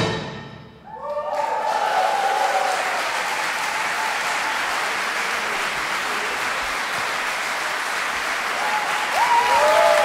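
The last chord of a concert wind band dies away in the hall's reverberation, then audience applause breaks out about a second in and continues steadily, with a few cheers near the start and again near the end.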